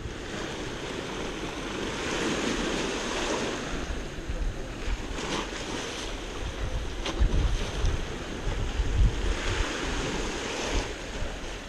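Sea waves washing against a concrete seawall, with wind buffeting the microphone. A couple of short clicks partway through.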